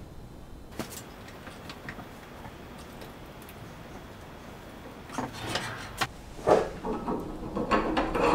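Door stop being fitted onto the end of a steel barn door track: a few faint clicks, then from about five seconds in a cluster of metal knocks and scrapes, the loudest about a second and a half later.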